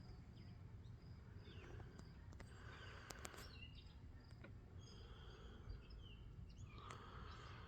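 Near silence: faint steady background rumble with distant birds chirping now and then, and a few small clicks.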